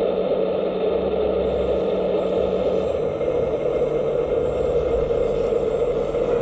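Hydraulic pump system of a 1/14-scale RC Liebherr 945 excavator running steadily, with a low hum that shifts slightly in pitch about three seconds in and a faint high whine.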